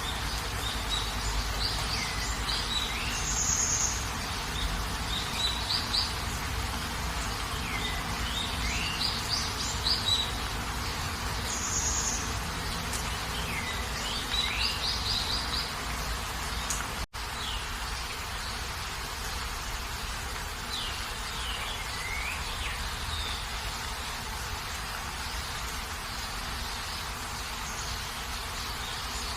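Steady rain with birds calling over it every few seconds: quick runs of chirps and short swooping whistles. The sound cuts out for an instant about halfway through.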